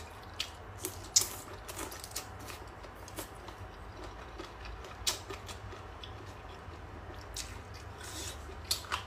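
Close-miked chewing of spicy boneless chicken feet: wet, squelchy mouth sounds with scattered sharp smacks, the loudest about a second in and again near five seconds. A low steady hum runs underneath.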